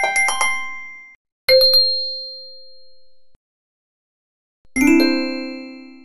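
Bright bell-like ding sound effects of a subscribe-button animation: three bursts of quick chiming strikes, near the start, about a second and a half in, and near the end, each ringing on and fading away.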